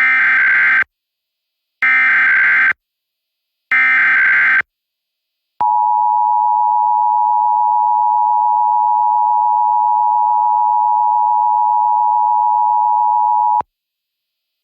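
Emergency Alert System SAME header: three short bursts of warbling data tones about a second apart. They are followed by the two-tone EAS attention signal, held steady for about eight seconds and cutting off abruptly. Together they open a statewide Required Monthly Test.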